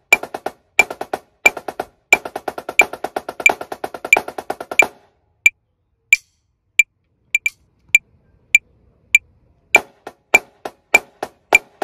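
Marching snare drum played with sticks in paradiddlediddle sticking patterns over an evenly ticking metronome click. The drumming stops about five seconds in, leaving only the metronome ticking, and starts again near ten seconds at a slightly faster tempo.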